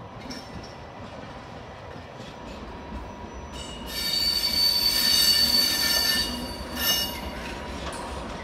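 Train wheels squealing on the rails over a low rumble: a loud, high-pitched squeal of several steady tones starts about three and a half seconds in and lasts about two and a half seconds, with a shorter squeal near seven seconds.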